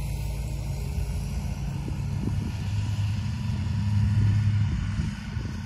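A steady low motor hum, like an engine running, that swells about four seconds in and eases near the end.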